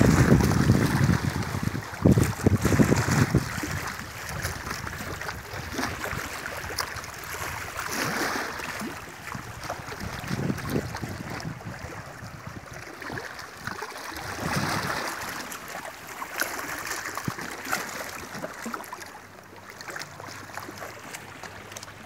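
Small sea waves lapping and splashing against shoreline boulders, with wind buffeting the microphone, heaviest in the first few seconds.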